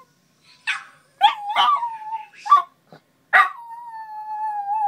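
West Highland white terrier howling: a few short yips and yowls, then one long drawn-out howl starting a little past halfway that slowly sinks in pitch.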